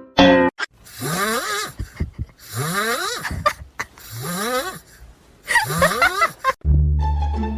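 A pet snoring loudly: four long, rasping breaths, each rising in pitch, after a short falling squeak at the start. Music with plucked strings comes in near the end.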